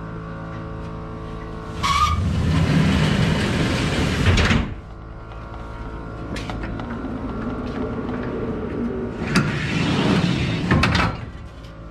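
Two stretches of loud noise, one about three seconds long near the start and a shorter one near the end, from the compartment doors of a fire rescue truck being opened and shut. A steady low hum runs underneath.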